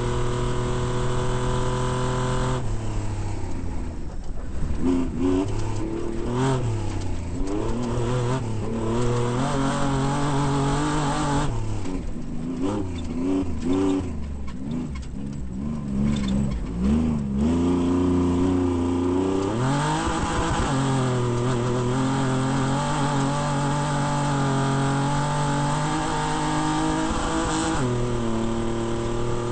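Off-road race vehicle's engine under way, first held at steady high revs, then rising and falling with the throttle for much of the stretch, then climbing back to a steady high pitch for the last several seconds.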